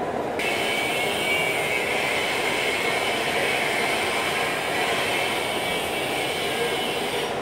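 TIG welding arc on stainless steel pipe, a steady high hiss that switches on about half a second in and cuts off abruptly just before the end, over the constant machinery and fan din of the shop.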